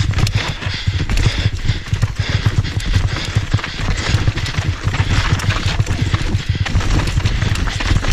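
Mountain bike descending a loose, rocky trail at speed. The tyres crunch over stones and the bike rattles and clatters in a dense, unbroken run of knocks, with a heavy low rumble underneath.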